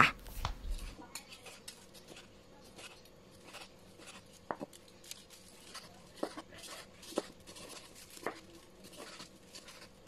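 Kitchen knife slicing grilled pork neck on a wooden cutting board: faint, irregular taps and clicks of the blade meeting the board, a few of them sharper.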